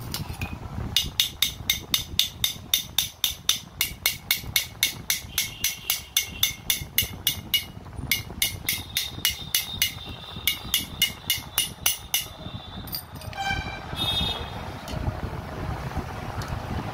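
Rapid metal-on-metal hammer strikes, about four a second, ringing, on the front tool-holder housing of a 5 kg demolition hammer. The strikes are meant to knock loose a chisel bit that is locked in the housing. They stop for a moment about eight seconds in, run on until about twelve seconds, and are followed by a few ringing clinks of metal parts.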